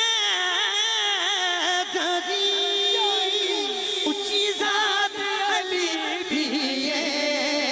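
A man singing a devotional manqabat into a microphone: long, drawn-out melismatic notes that glide and waver with vibrato.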